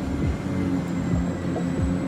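Small electric motors and gearboxes of radio-controlled construction models running with a steady hum and a thin high whine, overlaid by repeated short falling whines as the motors slow.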